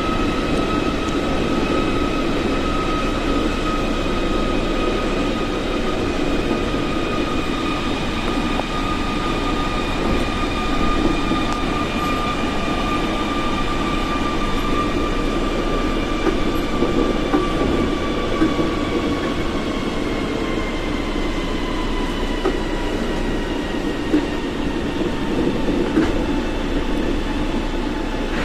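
Osaka Monorail straddle-beam train running, heard from inside at the front: a steady rumble of its rubber tyres on the concrete beam with an electric motor whine. The whine holds steady, then falls gradually in pitch over the second half as the train slows.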